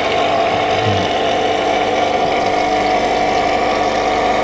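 An AP-JC 8570 electric high-pressure washer, its 700-watt induction motor and pump running at a steady pitch.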